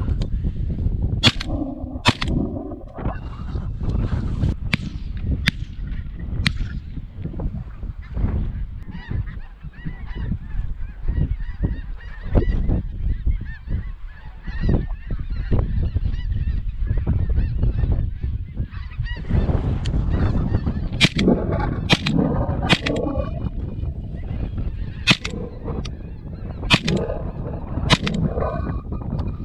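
A flock of wild geese honking overhead, with wind buffeting the microphone. Near the end come a couple of sharp shotgun blasts.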